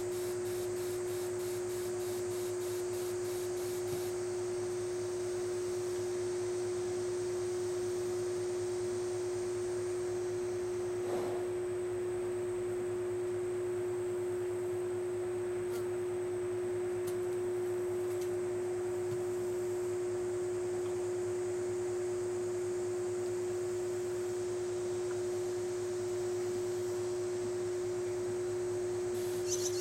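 A steady hum on one pitch runs throughout. Over it, the hiss of a garden hose misting nozzle spraying fades out about ten seconds in and starts again right at the end.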